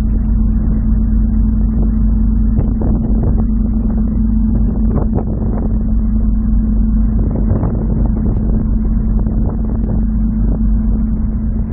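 Cruise ferry's engines and ventilation droning steadily with a constant low hum, heard on the open top deck while the ship is under way. A few faint knocks sound here and there.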